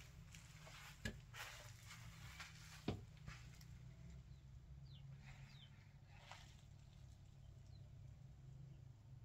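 Near silence: a faint low hum, with two soft knocks in the first three seconds and a few faint, short, high falling chirps around the middle.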